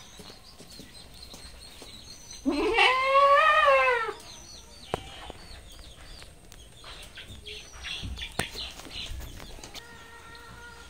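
A goat bleats once, about two and a half seconds in: one long, wavering call of about a second and a half that starts low and rises. Faint bird chirps are heard around it.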